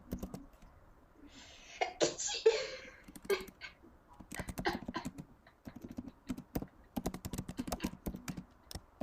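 A sneeze about two seconds in, a short loud burst of breath noise, followed by a run of quick irregular clicks of typing on a computer keyboard.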